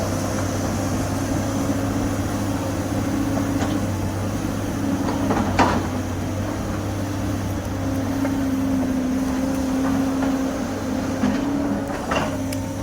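SANY excavator's diesel engine running steadily, with a sharp clunk about five and a half seconds in and another near the end.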